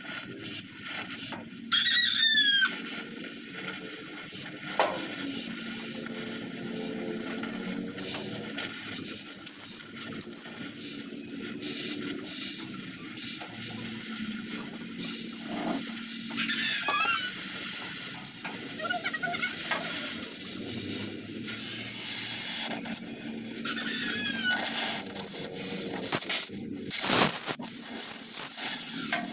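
Oxy-acetylene gas welding torch flame hissing steadily as it welds a steel patch onto a rusted tricycle sidecar floor. A few short, high gliding calls from an animal cut in four times, and there is a loud brief noise near the end.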